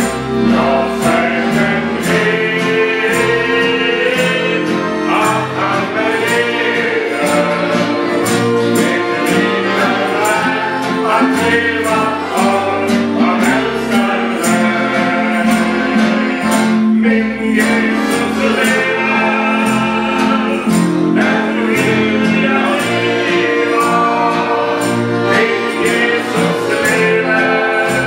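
A small mixed group sings a gospel song in harmony, with strummed acoustic guitars keeping a steady beat and several accordions holding chords underneath.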